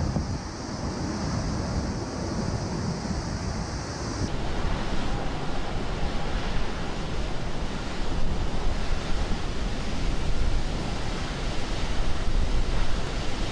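Launch pad water deluge system releasing a torrent of water, a dense rushing noise that grows louder over the seconds.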